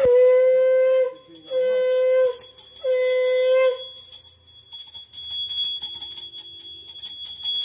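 A conch shell (shankha) blown three times, each a steady held note about a second long. Under it from about a second in, and alone after that, a brass puja hand bell is rung continuously in quick strokes, as at a Hindu puja offering.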